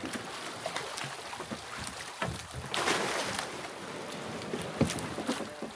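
Sea water sloshing and splashing around the bamboo outrigger floats of a fishing boat, with wind on the microphone. A louder splash comes about three seconds in, and there is a sharp knock near the end.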